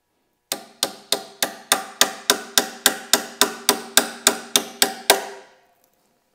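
A hammer striking metal in an even run of about seventeen blows, roughly three to four a second, each with a short metallic ring. The strikes are the motorcycle foot peg's pivot pin being tapped out to remove the stock peg.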